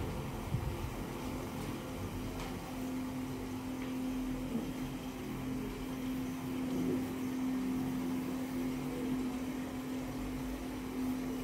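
Steady machine hum: a motor running with one constant low tone over a faint even background noise.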